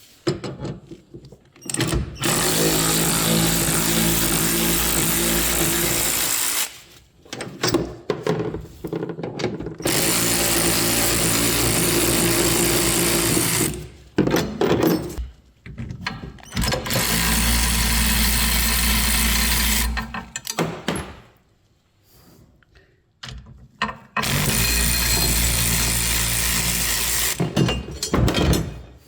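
Handheld power tool cutting away a piece of the tailgate fitting, run in four long spells of several seconds each with short pauses between.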